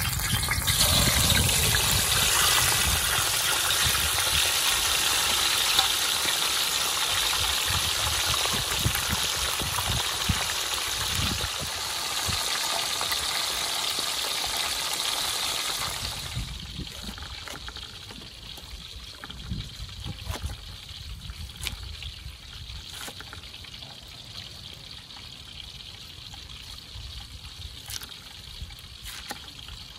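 A whole fish sizzling loudly as it goes into a wok of hot oil and deep-fries. After about sixteen seconds the sizzle stops, and a few sharp taps of a knife chopping cabbage on a wooden board follow.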